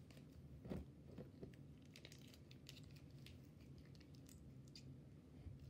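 Faint sticky clicks and squelches of slime being pulled and scraped out of its container by hand, with a soft knock about a second in.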